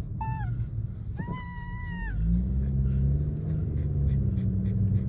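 Samoyed puppy whining: a short whine just after the start, then a longer, steady high whine of about a second. Under it runs the low rumble of the moving car.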